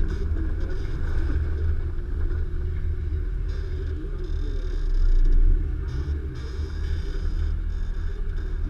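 The 2015 Nissan Xterra Pro-4X's 4.0-litre V6 rumbling low and steady while off-roading, briefly louder about five seconds in.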